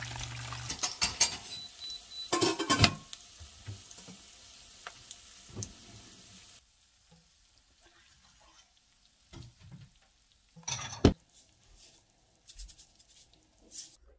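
Eggs sizzling in a frying pan, with sharp knocks against the pan about one and two and a half seconds in. The sizzle cuts off about halfway through, leaving a few scattered clinks and knocks of the pan and a ceramic bowl, one louder knock near the end of the second half, as a fried egg is slid onto a bowl of rice.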